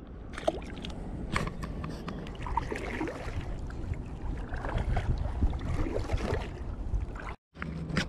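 Water lapping and small splashes around a plastic kayak, with scattered knocks and clicks from gear being handled in the boat. The sound cuts out briefly near the end.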